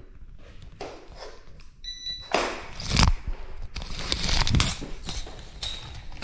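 Handling noise: rustling and knocks as the camera is moved about with its lens covered, the loudest knock about three seconds in. A short high electronic beep sounds about two seconds in.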